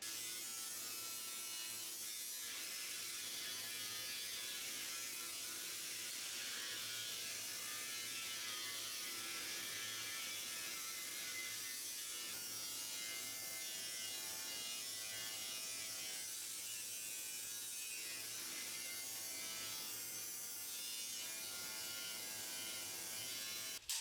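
Hobart Handler 140 MIG welder laying a continuous bead: a steady crackling hiss of the arc with a faint buzz beneath it. It starts and stops abruptly, as the trigger is pulled and released.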